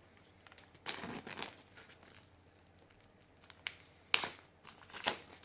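Blu-ray steelbook case being handled: rustling and crinkling about a second in, then two sharp clicks about a second apart near the end.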